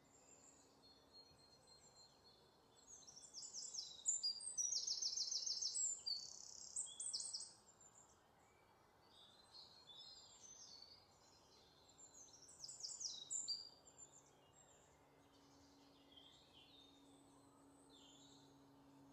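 Faint bird chirping in quick runs of high notes, loudest from about three to seven seconds in and again around thirteen seconds, over a low steady hum.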